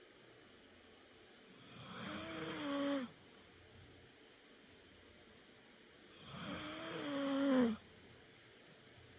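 A sleeping pet snoring: two long snores about four and a half seconds apart, each growing louder and carrying a steady pitched tone before cutting off sharply.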